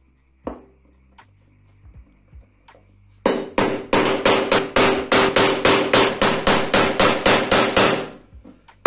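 A hammer rapidly tapping a hex-head bolt down into a laminated wooden block: about twenty quick, evenly spaced blows over some five seconds, starting about three seconds in, each with a slight ring. A single lighter knock comes about half a second in.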